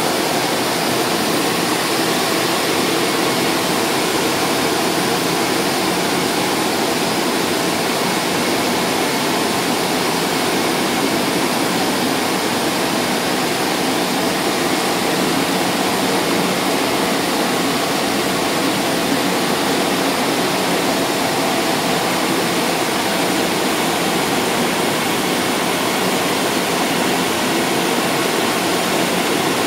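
Rapid Silver rollover automatic car wash machine running over a car: its brushes and water spray give a steady rushing noise with motor hum.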